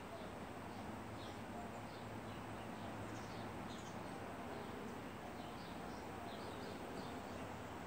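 Faint, short bird chirps scattered throughout, over a steady low background hum.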